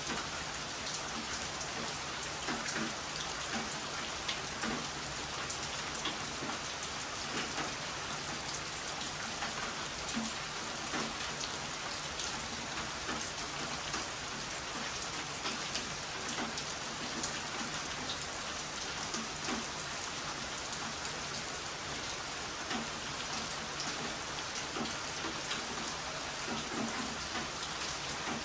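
Heavy rain falling steadily: a dense, even hiss of rain with many small sharp drop hits through it.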